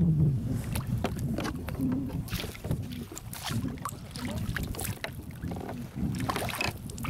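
Irregular splashing and slapping of water at a kayak's side as a hooked rainbow trout is drawn in alongside, over a low rumble of wind on the microphone.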